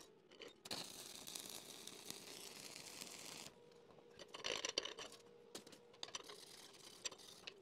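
Faint handling of a welded steel test plate on a steel welding table: a faint steady hiss for the first few seconds, then a brief scrape about halfway through as the plate is moved, with a few light clicks.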